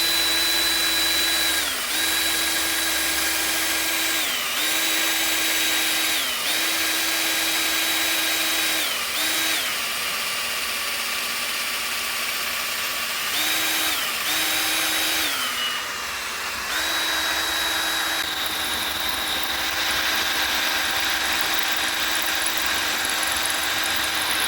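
Electric drill boring a pilot hole through a snapped bolt in a small-block Chevy cylinder head. The motor whine is steady but sags in pitch several times as the bit loads up under pressure, with one longer sag about two thirds of the way through.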